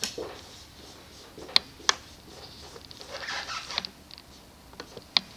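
Marker pen writing on a whiteboard: short scratchy strokes with a few sharp ticks as the tip meets the board.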